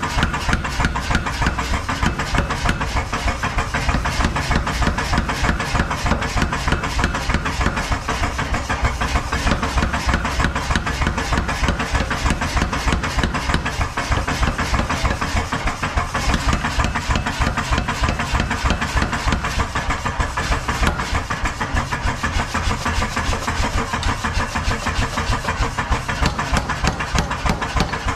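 Mechanical power hammer running and pounding a red-hot iron bar on its anvil die in rapid, steady, evenly spaced blows.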